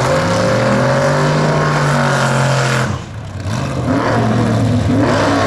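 Drag car engine revving hard. It cuts off abruptly about three seconds in, then picks up again and revs about a second later.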